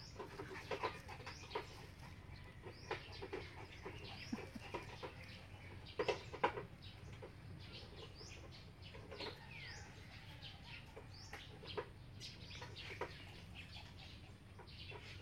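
Faint bird calls: scattered short, high chirps and clucking, the loudest pair of calls about six seconds in.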